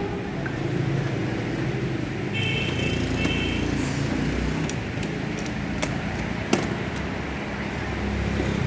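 Steady traffic rumble with two short horn beeps about two and a half and three seconds in, and a couple of sharp clicks later on.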